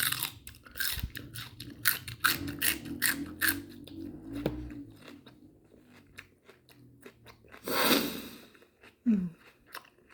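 Open-mouth chewing: wet smacking and crunching clicks that come thick in the first few seconds and more sparsely later. About eight seconds in there is a longer breathy burst.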